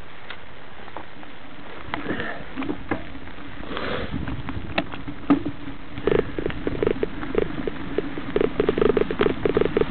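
Mountain bike rattling and knocking as it rides over a bumpy trail. A steady hiss at first, then scattered knocks from about two seconds in, turning into a quick, busy run of knocks over the second half.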